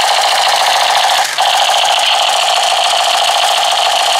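Toy machine gun's electronic rapid-fire sound effect from its small built-in speaker: a loud, continuous buzzing rattle, with a short break about a second in.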